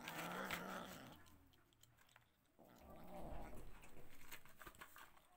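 A cat growling twice over a shared plate of dry kibble, the first growl about a second long and the second longer, with a few faint crunches of kibble near the end.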